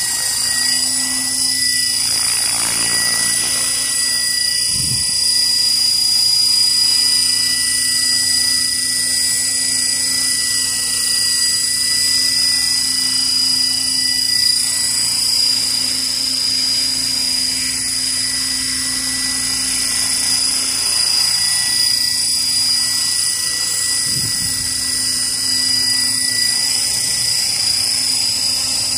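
Align T-Rex 600 radio-controlled helicopter flying low, its motor and main rotor giving a steady high-pitched whine.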